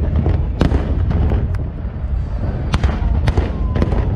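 Fireworks display going off: a continuous low booming of shells, with about six sharp bangs spread across the few seconds.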